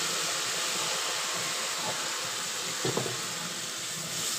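Blended tomato sizzling in hot oil on fried onions in a pot, a steady loud hiss as it is stirred with a wooden spoon. A brief knock comes about three seconds in.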